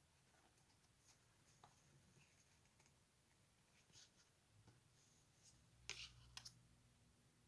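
Near silence with faint clicks and soft scrapes of tarot cards being handled and laid down, with a brief cluster of sharper clicks about six seconds in.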